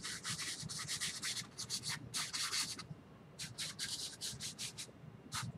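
Bristle paintbrush scrubbing wet oil paint onto canvas in quick short strokes, about four a second, in two runs with a brief pause between them and a single stroke near the end: highlights being worked into clouds.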